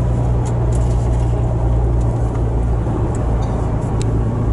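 Steady drone of a car's engine and tyres on the road, heard from inside the cabin while driving.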